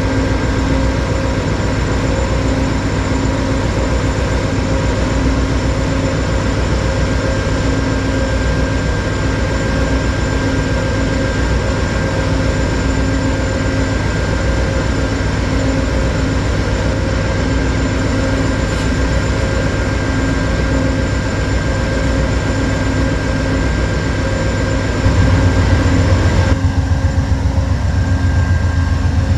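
Amtrak GE Genesis diesel locomotive running with a steady hum made of several constant tones. Near the end the low rumble grows louder with a slight pulsing.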